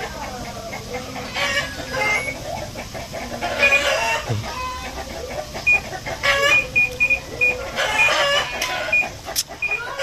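Chickens clucking and crowing several times. From about the middle on, a run of short, identical high beeps comes from the buttons of a Panasonic automatic washing machine's control panel as they are pressed.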